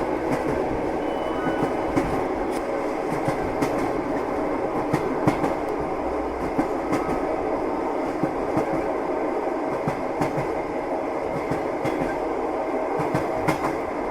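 Moving train: a steady rumble with irregular clicks of the wheels passing over rail joints.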